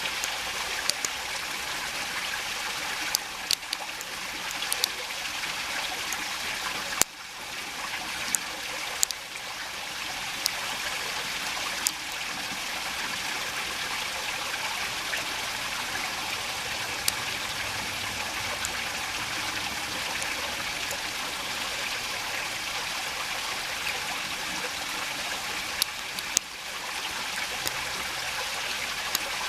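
Shallow rain-fed creek running steadily around the listener, a continuous splashing trickle. A dozen or so small sharp clicks come and go over it.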